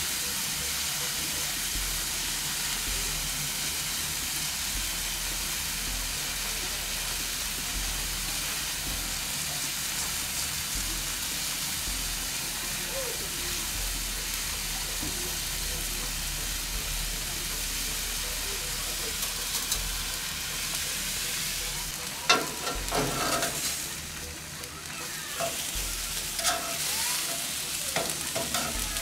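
Beef rump steaks sizzling steadily on a hot ridged grill plate. From about 22 seconds in, metal tongs click and knock against the plate as the steaks are turned.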